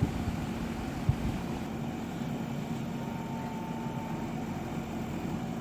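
JCB excavator's diesel engine running steadily with a low hum, with two short knocks about a second apart near the start.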